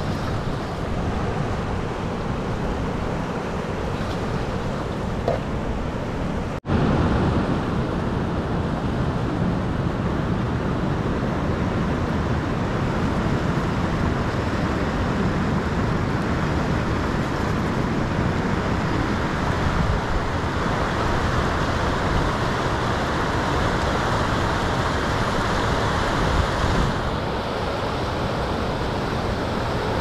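Fast-flowing river rushing over rocks: a steady, loud wash of water, briefly cutting out about six and a half seconds in.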